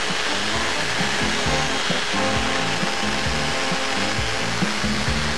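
Power tool running steadily, cleaning the black oxide off the barrel so the adhesive will stick, with background music underneath.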